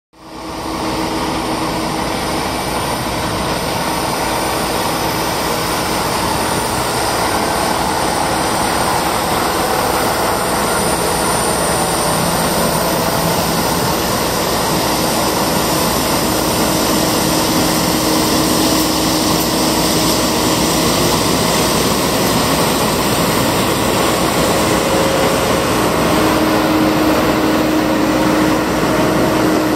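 Heavy diesel road-surfacing machinery running steadily: a bitumen sprayer tanker and a self-propelled chip spreader fed by a tipper lorry, laying a surface dressing of bitumen and stone chippings. It is a dense, constant mechanical din with a low hum, fading in at the very start.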